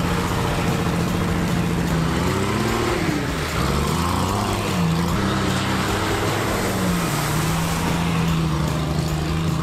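Nissan Patrol's 3.3-litre six-cylinder diesel engine, no turbo, running under load as the bare chassis drives through mud. Its pitch rises and falls about two seconds in, then holds steady.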